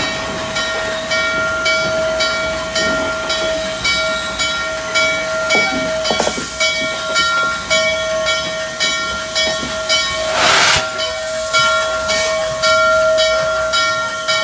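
Norfolk & Western J-class steam locomotive 611 standing with steam up: a steady whine runs under a regular pulsing hiss, about one and a half beats a second. About ten seconds in comes a short, louder blast of escaping steam.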